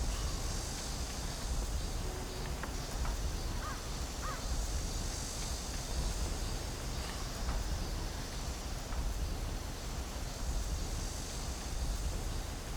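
Forest ambience: a steady, wind-like rushing with a low rumble, and a few faint bird calls scattered through it.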